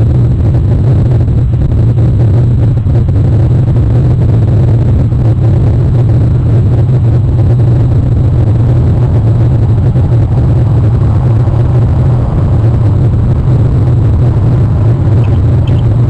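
A steady, loud low rumble that does not change, with a few faint high chirps near the end.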